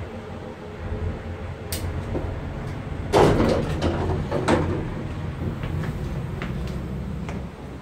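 Otis passenger lift arriving at a floor: a steady low hum from the car, a sharp click, then the sliding doors rumbling open about three seconds in.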